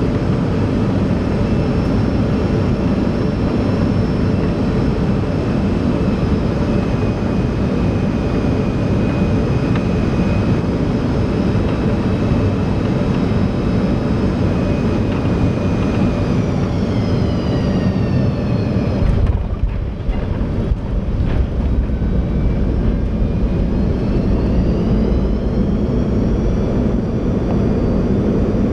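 Boeing 737-200's Pratt & Whitney JT8D low-bypass turbofan heard from the cabin, running steadily at approach thrust with a whine. The whine falls as thrust comes back, there is a jolt-like change about two-thirds through as the aircraft touches down, then the whine rises again as the clamshell thrust reversers spool up for braking on the runway.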